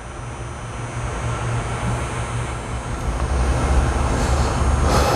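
Steady low hum and rumble with a constant hiss over it, like a running machine or fan, and a brief rustle near the end.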